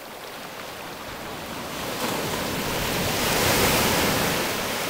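Pacific Ocean surf: a wave builds and breaks, the rush of water swelling to its loudest a little past the middle and then easing.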